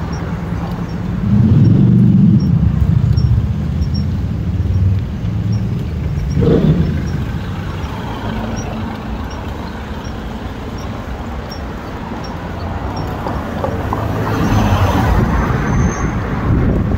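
City street traffic heard from a moving bicycle: a vehicle rumbles past about one to three seconds in, over steady road noise, with a short knock about six seconds in.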